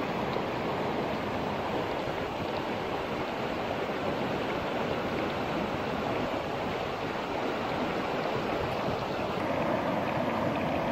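Fast-flowing stream rushing past rocks: a steady, even wash of running water.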